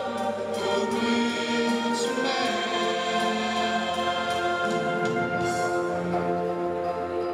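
Mixed choir singing long held chords, moving to a new chord about two seconds in and again near five seconds.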